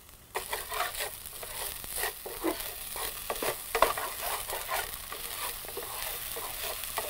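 Olive oil poured into a hot skillet of cooked brown rice starts sizzling about a third of a second in, then a wooden spatula stirs and scrapes the rice around the pan over continuous frying crackle. The oil is added because the rice is starting to stick to the pan.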